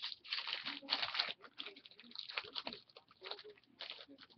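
A stack of trading cards being flipped and slid through the hands: a quick, uneven run of papery rustles, flicks and scrapes.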